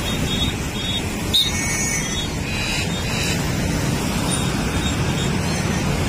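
Steady low road-traffic rumble, with a short click about 1.4 seconds in and a few faint, short high chirps in the first half.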